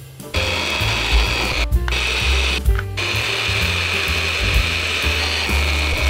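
Drill press running with a twist bit cutting into the brass rivet of a fishing reel's handle knob: a steady high whine. The drilling stops briefly twice.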